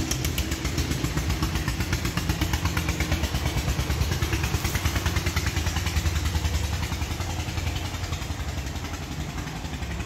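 An engine running steadily with a rapid, even throbbing pulse.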